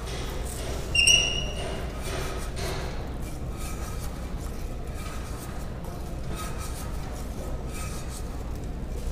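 Hand rasp scraping a plaster positive model in repeated strokes, a global reduction to bring the transfemoral socket model down to its target measurements. About a second in comes one short, bright metallic clink.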